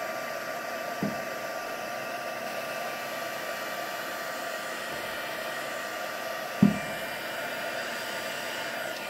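Craft embossing heat gun blowing hot air with a steady whirring hum, melting embossing powder on a stamped card. Two brief knocks cut in, one about a second in and a louder one past the middle.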